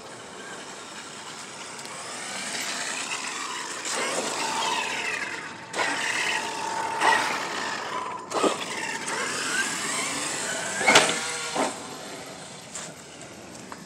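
Traxxas X-Maxx RC monster truck's brushless electric motor whining, rising and falling in pitch as the truck is driven hard, with tyre noise. Several sharp knocks come as the chassis hits the ground, the loudest about eleven seconds in.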